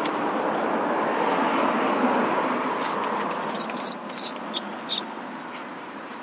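Baby long-tailed macaque squeaking in a quick series of about six high-pitched squeals a little past halfway, over a steady rushing background noise that fades away.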